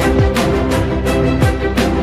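Background music with a steady beat: drum hits about three a second over held chords.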